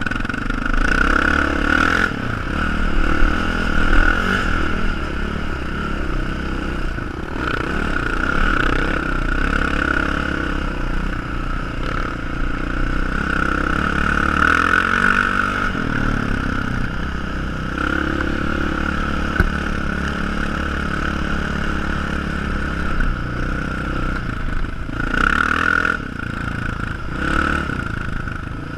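Sport ATV engine running and revving while being ridden over sand, heard from a camera on the quad, its loudness swelling and easing with the throttle.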